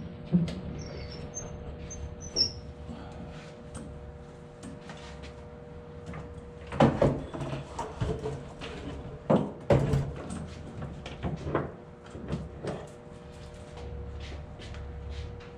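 Scattered knocks, clunks and rattles from an overhead rope-and-pulley boat lift as its lines and hook are handled, with the loudest clatters bunched in the middle and a few faint high squeaks in the first couple of seconds.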